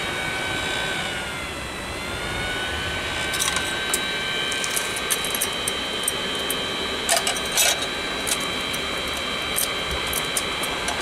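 Electric chimney blower on a 2-inch scale live-steam traction engine running to draw the fire while steam is raised: a steady whine of several pitches that dips and comes back up about two seconds in, then holds level. From about three seconds in, scattered sharp metallic clicks and rattles sound over it.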